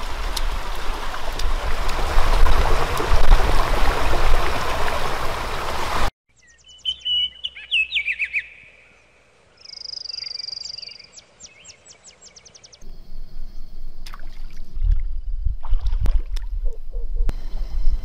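Steady rush of a flowing stream, cut off abruptly about six seconds in. Then small birds chirp and trill in quick rattling phrases, and the rushing water noise builds up again over the last few seconds.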